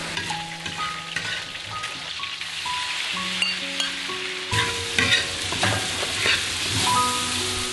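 Food frying in hot oil in a large wok, sizzling steadily while a metal ladle stirs and scrapes. About four and a half seconds in the sizzle grows louder and busier as sliced pig liver goes into the oil and is stir-fried.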